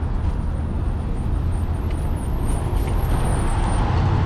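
Steady road traffic noise: the continuous rumble of cars on a city street, with no single event standing out.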